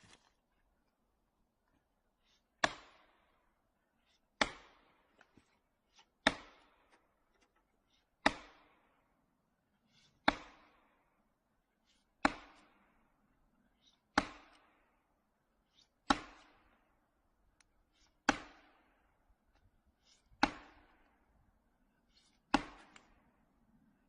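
Heavy chopping strikes on wood, eleven of them at a steady pace of about one every two seconds, each a sharp crack that dies away quickly.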